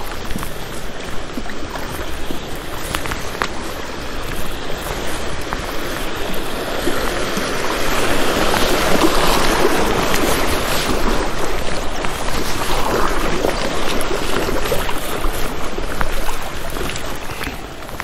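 River water rushing and splashing, growing louder about halfway through and easing off near the end, with a few faint ticks in it.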